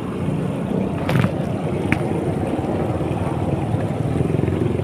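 Chicken pieces deep-frying in a large wok of bubbling oil: a steady sizzle over a low, even rumble, with a brief click about a second in and another near two seconds.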